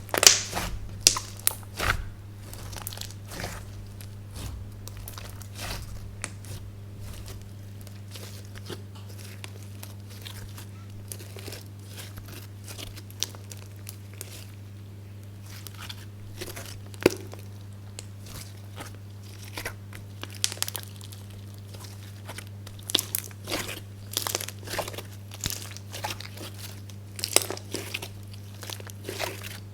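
Slime being squished and kneaded by hand, giving quick sticky crackles and little pops, busiest near the start and again over the last third. A steady low hum runs underneath.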